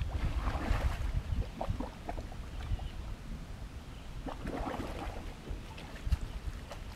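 Water splashing and dripping in two bouts, one about half a second in and one about four and a half seconds in, over a low rumble of wind on the microphone that is strongest at the start.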